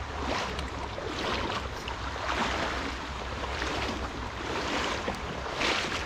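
Water of a shallow river rushing steadily, with swells of noise about once a second over a low rumble.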